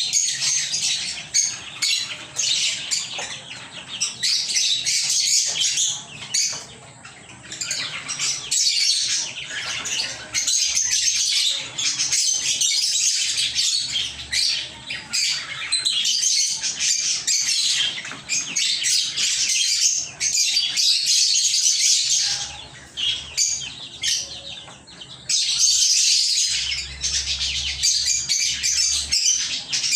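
Lovebirds chirping and chattering: a dense, nearly unbroken run of high-pitched calls that eases off briefly about seven seconds in and again a little past twenty seconds.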